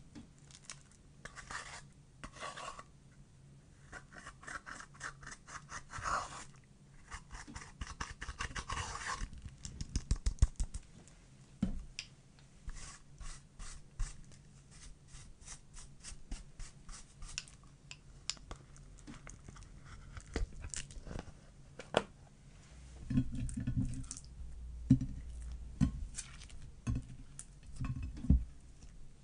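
Pressed eyeshadow being scraped and crushed out of palette pans with a makeup brush: rapid scratchy strokes and gritty scraping. From about 23 s in, clear slime is pressed onto the loose powder with soft, low squishy thumps.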